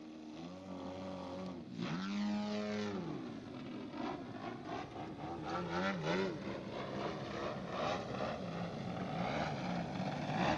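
DA 120cc twin-cylinder two-stroke petrol engine of a large-scale RC Extra 300 aerobatic model, exhausting through canister mufflers, running in flight. Its pitch rises and falls repeatedly as the throttle is worked through the manoeuvres, with a marked dip and recovery about two seconds in. The sound fades up at the start.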